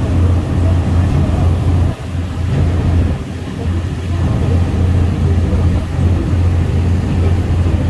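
Boat's engine droning steadily under way, with the rush of water churned up in its wake.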